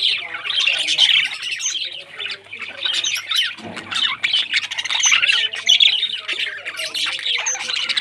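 Several budgerigars chattering, a steady stream of chirps and squawks without a break.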